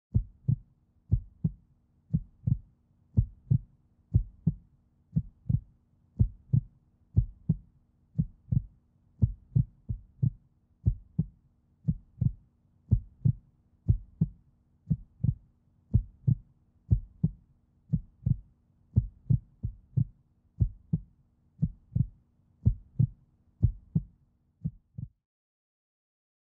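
Heartbeat thumping at a steady rate, about one and a half beats a second, over a faint steady hum; it stops abruptly near the end.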